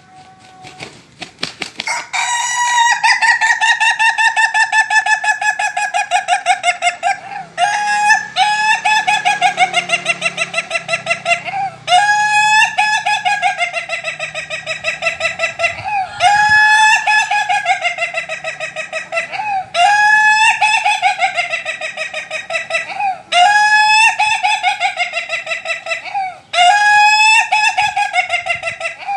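Laughing chicken (Ayam Ketawa) rooster crowing: a long, rapidly stuttering crow that sounds like laughter, repeated about seven times with only short breaks between crows.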